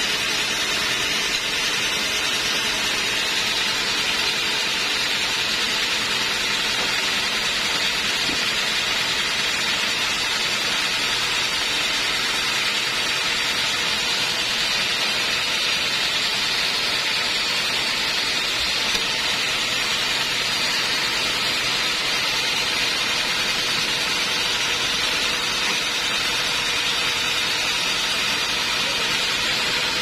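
Homemade band sawmill running steadily, its motor and band blade making an even, unbroken whir.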